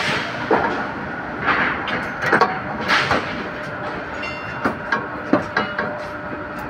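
Irregular clanks and rattles of steel reinforcing bars being handled on a rebar bending machine's table, with the machine's motor not running. About eight separate knocks come at uneven intervals over a steady background noise.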